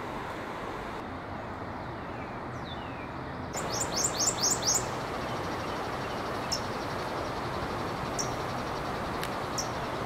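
Prothonotary warbler singing: a quick series of about six loud, bright, repeated high notes about four seconds in, followed by three short single high notes spaced a second or two apart, over a steady rushing hiss.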